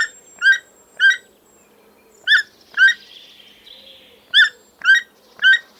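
Toucan calling: a string of short, sharp notes about two a second, coming in groups of two or three with brief pauses between.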